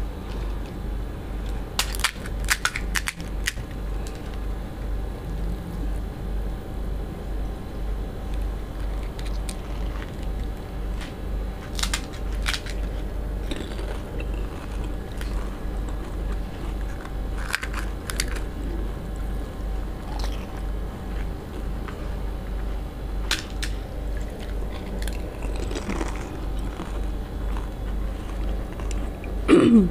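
Crisp fried panipuri (fuchka) shells cracking and crunching as they are poked open and bitten, with chewing in between, from two people eating fast. The sharp crunches come in scattered clusters over a steady low hum.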